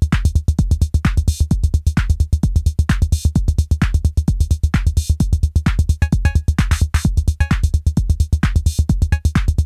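Electronic music with a fast, steady drum-machine beat over deep bass.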